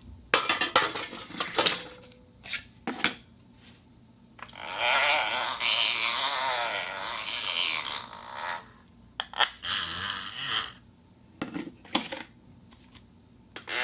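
Iron plate being knocked and scraped: a run of sharp metallic clanks and clinks, then a rough scrape lasting about four seconds, then a few more clanks and short scrapes near the end.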